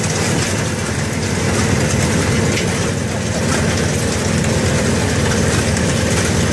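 Engine of a watermelon-harvesting rig running steadily, powering its conveyor belt.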